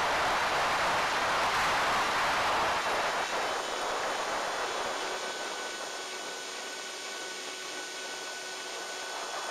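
Wind rushing over the onboard camera of a ZOHD Drift FPV plane in flight. The rush eases off about halfway through, and a few faint steady whining tones come through under it.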